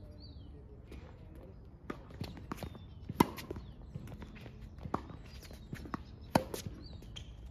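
Tennis rally on a hard court: a racket strikes the ball four times, with the two loudest hits about three seconds apart and fainter ones between. Smaller knocks of ball bounces and players' footsteps come between the hits.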